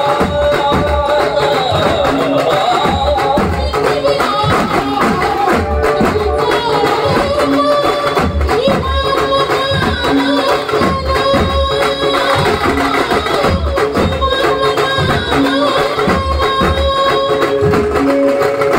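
Maharashtrian banjo party playing: a held, wavering melody line, from the group's banjo, over steel barrel drums and bass drums keeping a steady beat.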